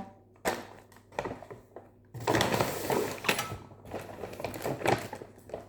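Irregular rustling, crinkling and light clicking of gift packaging being handled, busiest about two to three and a half seconds in.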